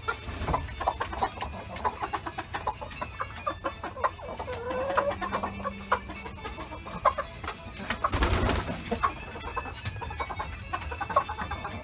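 Chickens clucking in short, repeated calls. About eight seconds in there is a brief noisy flurry, wing flapping as a chicken flies up onto the perch.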